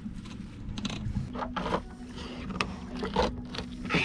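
Knife scraping and knocking on a bait board as a fish is filleted and skinned: a string of short scrapes and knocks over a steady low hum.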